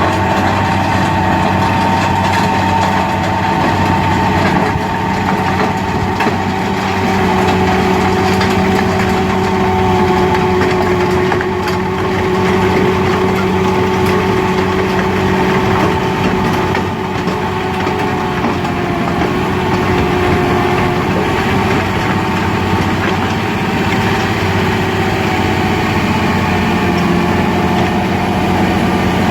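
Large tractor's diesel engine running steadily under load, with a constant mechanical whine over the engine noise, typical of a tractor driving a heavy PTO rotavator in the field.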